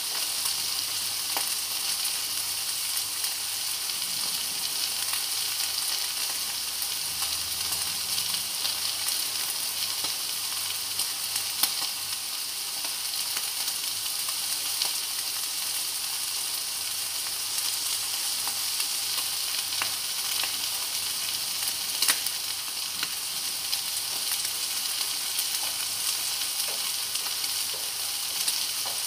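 Diced chicken and squash sizzling steadily in a frying pan, with small pops throughout and a couple of sharper crackles.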